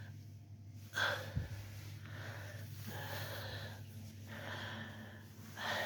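A person breathing close to the microphone, soft breaths about every second or so, over a steady low hum, with one dull thump about a second and a half in.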